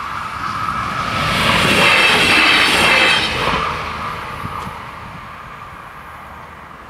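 A Coradia LINT 41 diesel multiple unit passing over the level crossing. Its running noise swells, peaks for about two seconds and then fades away. The crossing's warning bells ring steadily underneath until about halfway through.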